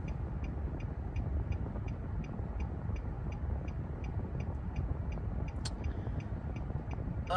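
Steady road and engine rumble inside a moving car's cabin, with a faint regular ticking about three times a second and a single sharp click about five and a half seconds in.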